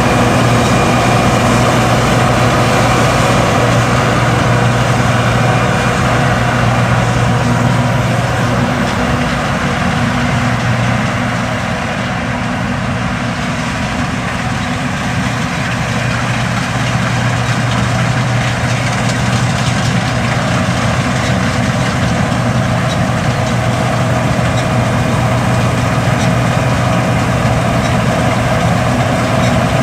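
John Deere S550 combine, 271 horsepower, running steadily while harvesting, with a constant low engine hum over broad machinery noise. It grows a little quieter about a third of the way through, then returns to full level.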